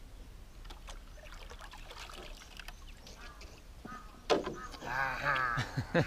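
Faint trickling and dripping of water as a fishing net is worked over the side of a wooden dugout canoe, with a few light knocks. About four seconds in there is a sharp knock, then a loud animal call that wavers up and down for over a second.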